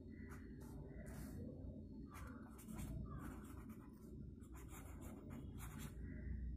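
Felt-tip marker writing on paper: a faint series of short scratchy strokes as a word is written out.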